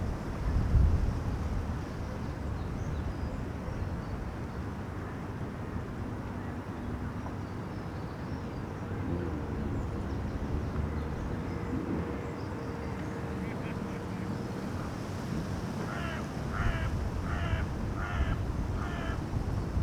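Afternoon park ambience: a steady low outdoor rumble, then near the end a bird gives five calls in quick succession, about three every two seconds.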